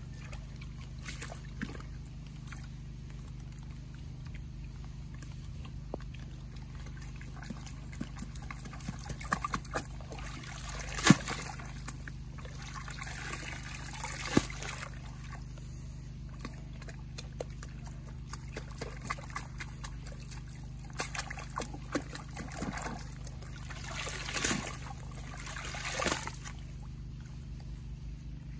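Muddy water sloshing, pouring and dripping as sluice carpet mats are rinsed and shaken out in a water-filled pit, in several separate bursts with the sharpest splash about eleven seconds in. A steady low hum runs underneath.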